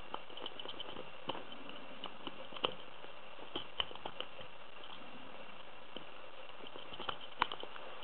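Bogota rake pick working the pins inside an AZBE lock cylinder under tension: irregular light metallic clicks and scrapes, with a few sharper clicks near the middle and near the end, over a steady hiss.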